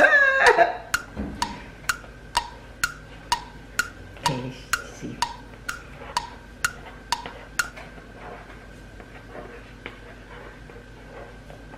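Laughter at the start, then a ticking-clock sound effect: sharp, evenly spaced wood-block-like ticks, about two a second, that stop abruptly about two-thirds of the way through.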